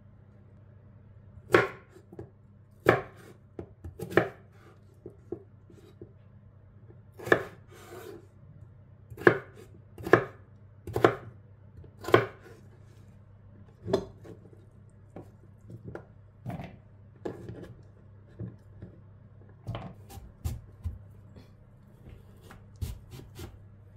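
Kitchen knife chopping a potato into cubes on a wooden cutting board: irregular sharp knocks of the blade on the board, about one a second, softer and more scattered in the second half as the knife moves on to cutting a celeriac root. A faint steady low hum runs underneath.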